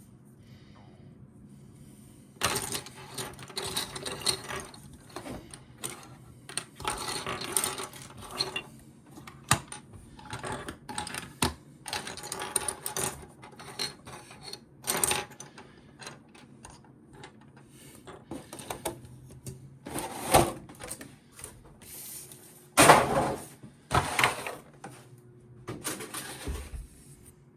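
Plastic action-figure parts and packaging being handled: irregular rustling and light clacking that begin after a couple of quiet seconds, with the loudest rustle near the end.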